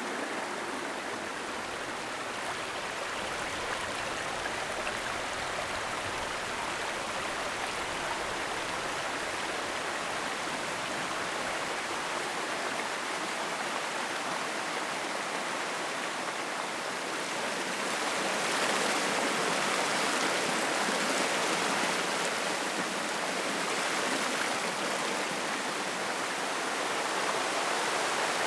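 Woodland brook running over rocks: a steady rush of water that gets a little louder and brighter about two-thirds of the way in.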